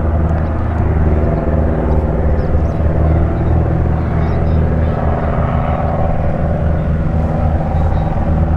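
Steady drone of the piston engines and propellers of two high-wing light aircraft towing advertising banners overhead.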